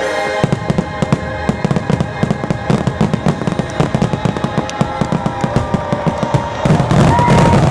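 Fireworks bursting in a rapid, dense run of pops and crackles over the show's music, getting louder about seven seconds in.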